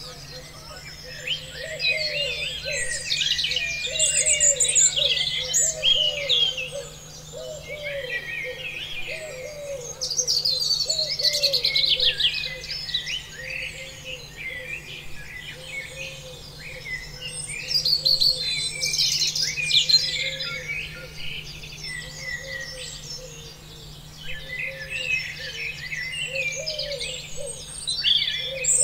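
A chorus of songbirds chirping and singing over one another, the chirping swelling and easing off every several seconds, with a lower repeated note running beneath.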